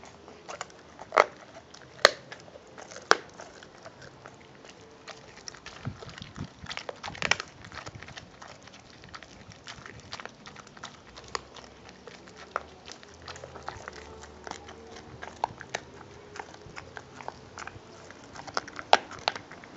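American Pit Bull Terrier gnawing and chewing a raw meaty bone: irregular crunches and sharp cracks, loudest in the first few seconds and again near the end, with quieter chewing in between.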